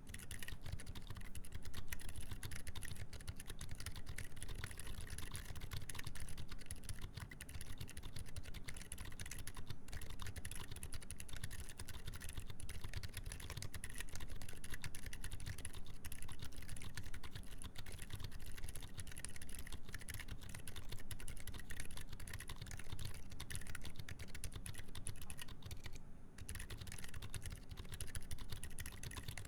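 Continuous fast typing on a mechanical keyboard with Gazzew U4 Boba silent tactile switches, 62 g springs, on a full FR4 plate with GMK keycaps: a dense stream of soft, muted keystrokes with the switches' click damped, the sound sitting mostly low.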